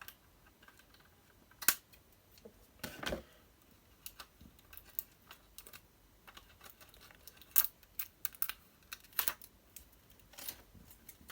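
Scattered sharp clicks and light taps of a diecast model car and its plastic packaging being handled and turned over, with the loudest clicks about two seconds in and twice more near the end.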